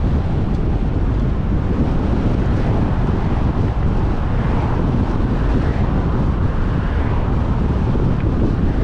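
Steady wind noise buffeting the microphone of a camera on a moving vehicle, with road noise underneath.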